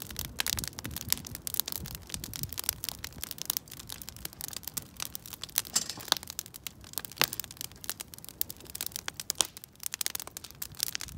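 Wood campfire crackling, with many irregular sharp snaps and pops.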